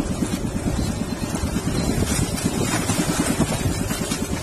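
Engine of a motorised outrigger boat (bangka) running steadily under way, a fast even chugging, with water rushing along the hull.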